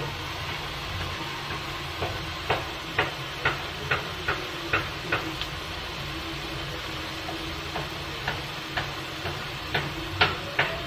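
Prawns in spice paste shallow-frying in hot oil in a kadai: a steady sizzle with irregular sharp pops of spattering oil, coming in two runs, the loudest pop near the end.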